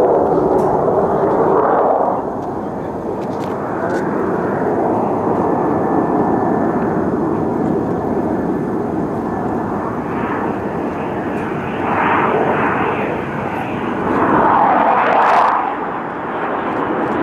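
F/A-18 Hornet's twin General Electric F404 turbofan engines heard in flight: a continuous rushing jet noise that swells louder twice in the second half as the jet passes.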